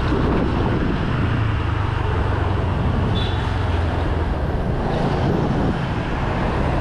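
Honda SH 150 scooter's single-cylinder four-stroke engine running steadily under way, with road noise.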